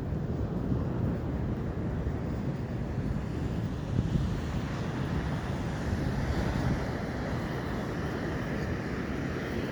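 Wind buffeting the microphone over the steady wash of Atlantic surf. The hiss of the breaking waves grows from about four seconds in.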